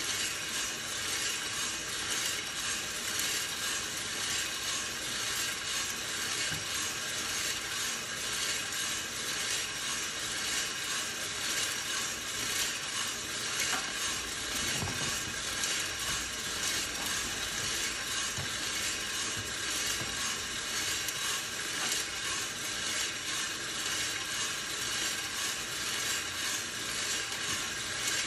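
Hottop home drum coffee roaster running early in the roast: its motor and fan whir steadily while pale coffee beans rattle and tumble in the rotating drum.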